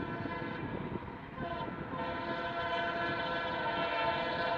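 Horn of an approaching WDP4 diesel locomotive sounding in long, steady blasts. It breaks off briefly about a second and a half in, then sounds again.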